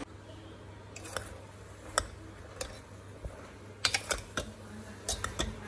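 Metal ladle clicking and scraping against a pressure cooker as chopped bottle gourd is stirred: scattered light clinks, a few clustered together, over a steady low hum.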